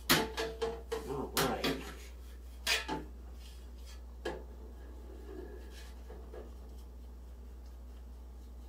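Metal Pullman loaf pan lid being handled on a stainless steel table: a run of sharp clanks and knocks in the first three seconds and one more about four seconds in, as the lid is moved and greased with a pastry brush.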